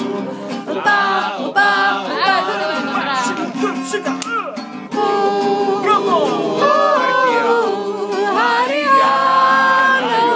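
Two men singing together to an acoustic guitar, with several long held notes.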